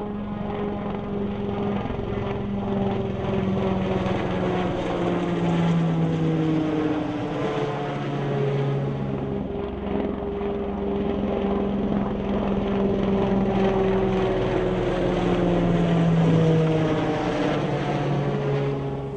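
Piasecki X-49A SpeedHawk compound helicopter flying past at high speed, its rotor and ducted pusher propeller making a steady drone. The tones slowly fall in pitch as each pass goes by.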